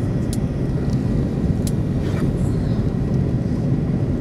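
Steady low drone of airliner cabin noise, engines and rushing air heard from inside the cabin during descent, with a few short sharp clicks or rattles over it.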